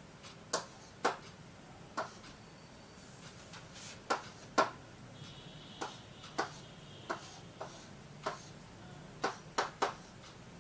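Stylus pen tapping on the glass of an interactive touch-screen board while drawing: about a dozen sharp, irregular clicks as the pen meets the screen.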